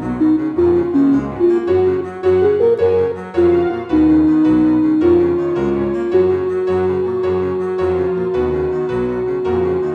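Instrumental background music: a melody of short changing notes over a bass line, settling into one long held note for the second half.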